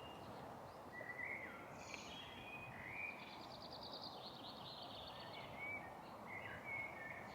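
Faint birdsong: several short whistled notes, some sliding up or down, and a quick trill lasting about a second and a half in the middle, over a steady background hiss.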